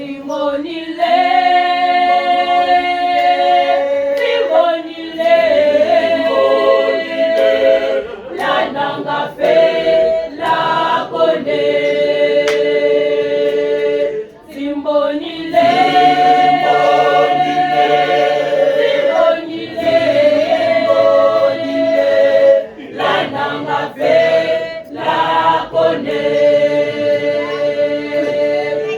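Church choir of mixed voices singing a cappella in harmony, holding chords in phrases with short breaks between them.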